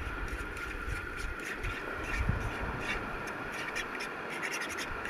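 A fork scraping and clicking irregularly against a frying pan as eggs are stirred, over a steady hiss.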